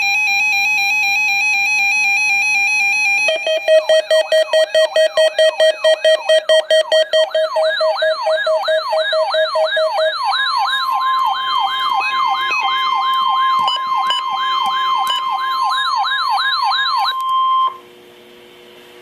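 Electronic sirens and alert tones: a warbling electronic tone, then a siren wailing up and down about twice a second over a steady tone. About ten seconds in, a steady tone that fits the NOAA Weather Radio 1050 Hz warning alarm begins under the siren. The sound cuts off abruptly near the end, leaving faint hiss.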